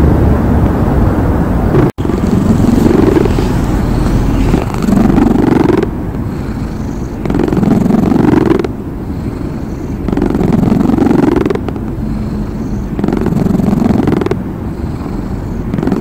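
Domestic cat purring close up in the drowsy stage between purring and snoring just before sleep: a low buzzing purr that swells with each breath, about once every two and a half seconds, each swell rising slightly in pitch. A brief dropout about two seconds in.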